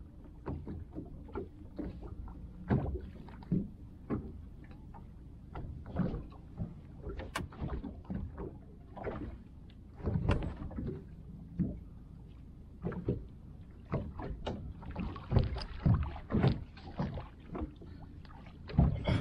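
Water slapping against a small boat's hull, with irregular knocks and taps of fishing gear being handled on board as a hooked grouper is brought alongside. A steady low rumble runs underneath, and the knocking is busiest near the end.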